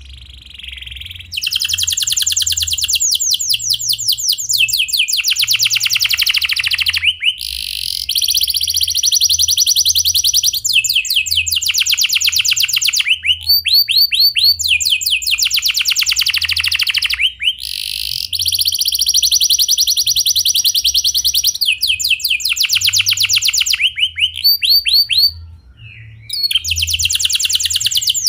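Domestic canary singing a long song of fast rolling trills: phrases of rapidly repeated notes, many sweeping downward, changing every few seconds with brief pauses between them.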